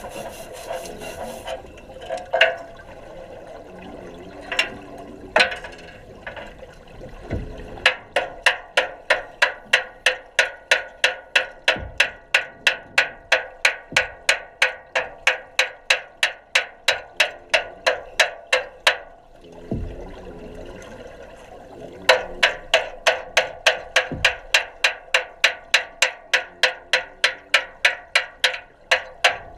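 Underwater sound in a welding training tank: bubbling water with a few knocks, then a rapid, regular clicking at about three to four clicks a second. The clicking pauses briefly about two-thirds of the way through and then starts again.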